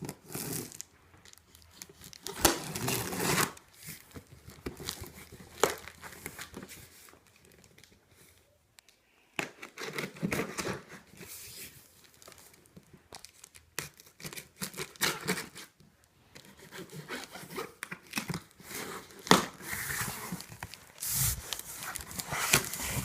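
A cardboard shipping box being opened by hand: irregular tearing and crinkling of packaging with sharp knocks and scrapes, pausing briefly partway through.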